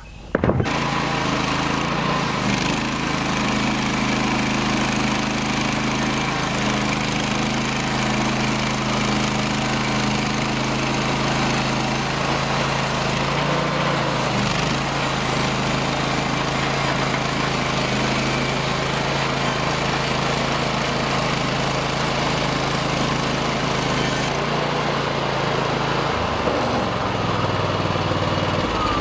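Portable sawmill's engine running at speed while the blade saws through a log, with a steady engine note under a broad hiss of cutting. It starts abruptly just after the start; near the end the cutting hiss fades and the engine note drops lower as the cut finishes.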